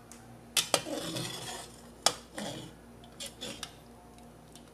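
A metal ladle clinking against a metal cooking pot as boiled chicken is scooped out of the broth: two quick clinks about half a second in and a sharper one about two seconds in, with the broth sloshing after them.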